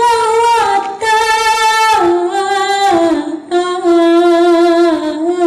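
A solo voice singing long held, wavering notes in phrases about a second long, with the pitch stepping down about two seconds in.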